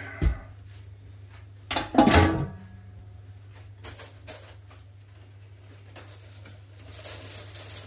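Metal roasting-pan lid lifted off and set down with a ringing clank about two seconds in, with lighter knocks after it. Near the end, the aluminium foil over the pan crinkles as it is handled.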